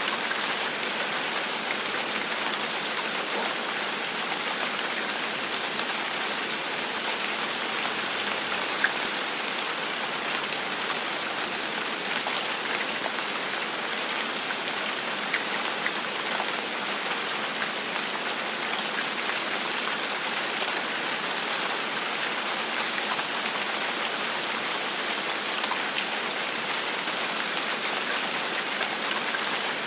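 Steady gentle rain falling on a surface, an even hiss with the odd louder drop ticking through it.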